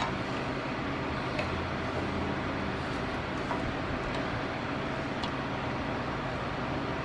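Steady low hum and hiss, with a few faint light clicks of hand tools and a bolt being worked.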